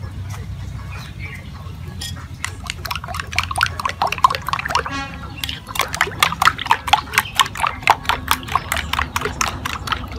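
Metal spoon beating raw eggs in a ceramic bowl, clinking rhythmically against the rim with a wet slosh. The strokes start lightly about two seconds in and become strong and even, about four a second, in the second half.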